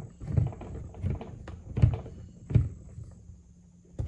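A screwdriver turning a small bolt through the wall of a hollow plastic hard case, with four dull knocks from the case about three-quarters of a second apart, the third the loudest.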